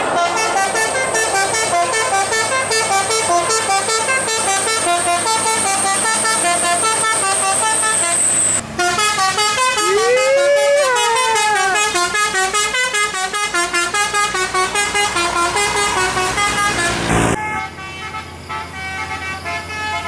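A tour bus's multi-tone musical air horn ("telolet") playing a tune note by note. There is a brief break about eight and a half seconds in, and a sliding rise-and-fall tone soon after. The horn cuts off about seventeen seconds in.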